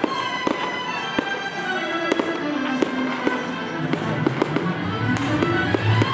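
Fireworks going off in irregular sharp bangs and crackles over steady background music.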